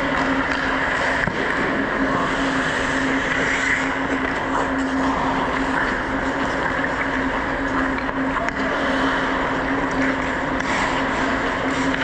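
Ice rink ambience during a hockey game: a steady rush of noise over a constant low hum, with a few faint knocks.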